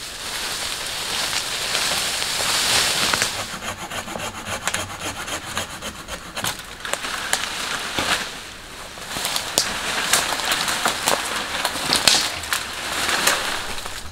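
A thin sapling being cut at its base with a hand saw: wood rasping in swells, with sharp cracks and rustling of branches.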